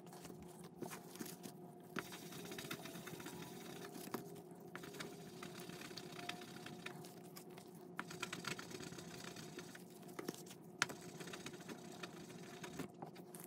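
Resin d20 die rubbed back and forth on fine polishing paper by a gloved hand: a faint, steady scratchy rubbing with many small clicks. It is the polishing stage that brings a re-sanded face back to a clear shine.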